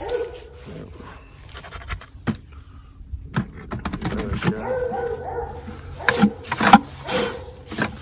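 A dog whining and whimpering in drawn-out, wavering cries, loudest about six to seven seconds in. Light clicks and knocks of a wooden hive frame being handled come in between.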